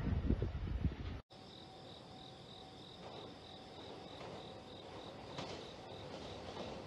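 The rumble of the 285 series Sunrise Seto electric train running off down the track, cut off abruptly about a second in. Then a quiet background with insects chirping in an even, steady pulse.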